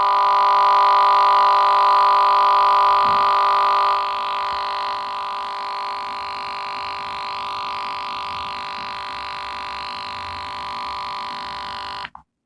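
OnePlus One phone's speaker holding one steady electronic tone with many overtones, a little quieter after about four seconds, then cutting off suddenly near the end.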